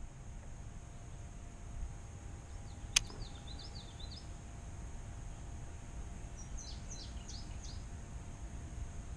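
Small songbird chirping in two quick runs of short wavy notes, one about three and a half seconds in and one around seven seconds, over a low steady outdoor rumble. A single sharp click sounds about three seconds in.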